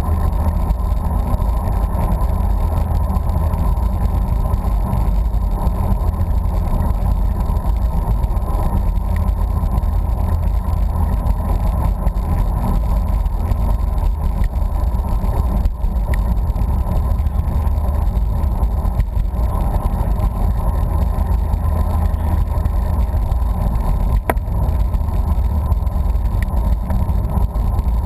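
Steady wind rushing over the microphone of a camera on a moving bicycle: a deep, unbroken rush with no change through the stretch.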